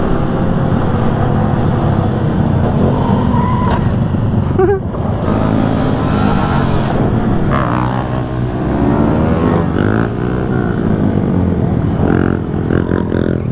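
Several small motorcycles, mainly Honda Grom 125 cc single-cylinder bikes, riding together with their engines revving up and down in overlapping rising and falling pitches. A steady low rumble of wind noise runs underneath.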